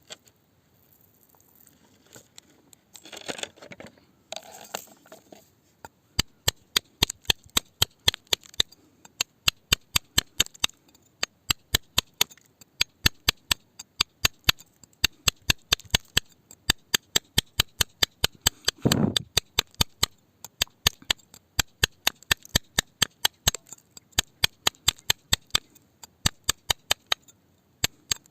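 Rapid, regular sharp taps of a hard tool on rock, about three a second, after a few seconds of crunching and crumbling at the start, with one dull thud about two-thirds of the way through.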